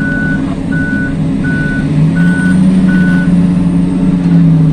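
Komatsu HD785 mining haul truck's diesel engine running, its pitch dipping and rising, with a truck reversing alarm beeping five times at an even pace before it stops a little past three seconds in.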